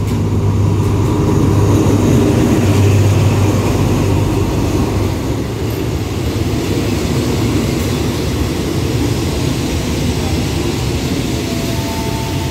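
Diesel locomotive of a passenger train passing close by as it pulls into the platform. Its engine hum is loudest over the first few seconds, then eases into the steady rumble of carriages rolling past, with a faint high whine near the end.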